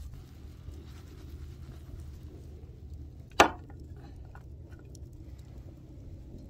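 A metal frying pan knocks once, sharply, against a wooden board about three and a half seconds in as caramel popcorn is tipped out of it, followed by a few faint clicks, over a steady low rumble.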